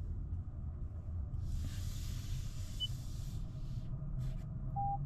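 Steady low rumble of road noise inside a moving car, with a hiss that comes in about a second and a half in and fades out some two seconds later.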